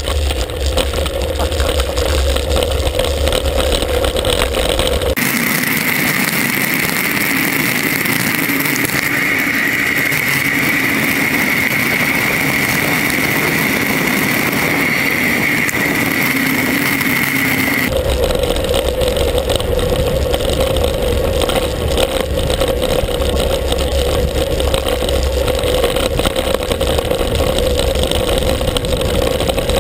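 Steady wind rush and tyre noise on a handlebar-mounted action camera during a fast road-bike descent, with a heavy low rumble from wind on the microphone. About five seconds in, the sound cuts to a higher, thinner version with the rumble gone as the footage switches to four-times speed, and it drops back to normal speed past the middle.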